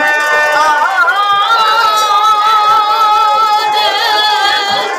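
A woman sings a long held note with a wavering vibrato in a Bengali harinam kirtan, over a steady harmonium drone. The held note comes in about a second in and lasts almost to the end.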